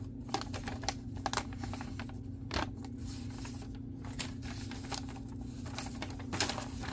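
A paper instruction sheet being unfolded and handled: light, irregular crinkling and rustling with small scattered clicks, over a steady low hum.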